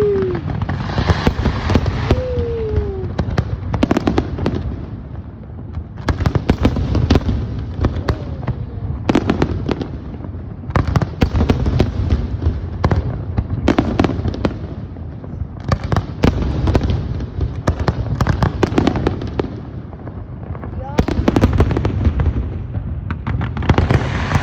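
Aerial fireworks going off: a dense run of bangs and crackles that thickens and eases in waves every few seconds.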